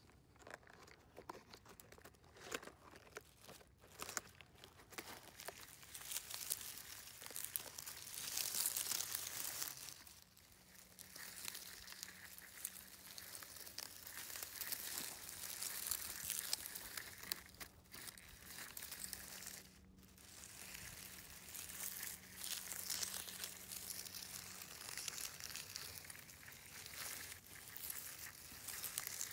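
Plastic toy car pushed by hand over birch bark and through dry leaves, pine needles and moss: a faint, uneven crackling and crunching of dry forest litter under its wheels, swelling and fading as it moves.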